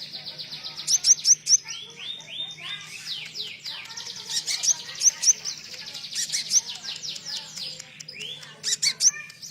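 Konin bird singing a rapid, varied song with cililin-style phrases worked in: fast runs of high, down-slurred chirps, with louder sharp notes about a second in and again near the end. This is a masteran recording, meant to train or lure songbirds. A faint steady low hum runs underneath.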